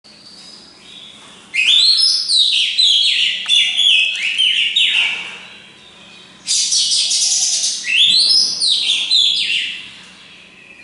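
Caged oriental magpie-robin singing in two loud runs of quick, varied whistled phrases, the first starting about a second and a half in and the second about six and a half seconds in.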